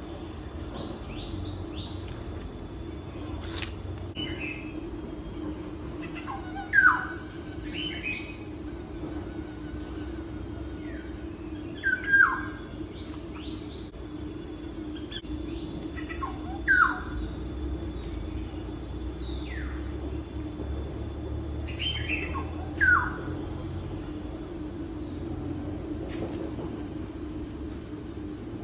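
Bird calls: a short rising chirp repeated about every five seconds, over a steady high-pitched drone like insects and a low hum.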